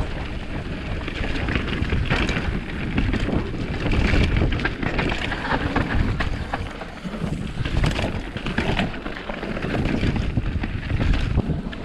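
Mountain bike riding along a dirt trail strewn with dry leaves: wind buffeting the camera microphone, with tyre noise and scattered clicks and rattles from the bike over the rough ground.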